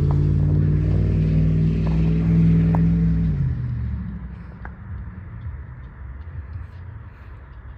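Kansas City Southern locomotive's air horn sounding one long blast that cuts off about three and a half seconds in, followed by the low rumble of the train.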